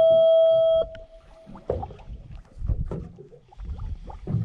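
A steady high-pitched tone that stops abruptly about a second in, followed by low rumbling and scattered knocks.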